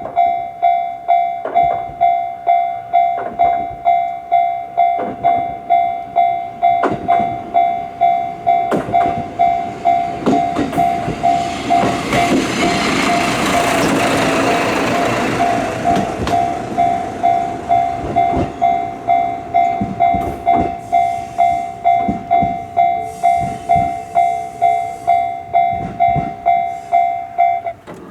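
Japanese level-crossing warning bell ringing its steady 'kan-kan' tone over and over, about one and a half strikes a second. A train passes through the crossing, its wheel and running noise swelling to a peak midway and partly covering the bell. The bell stops just before the end.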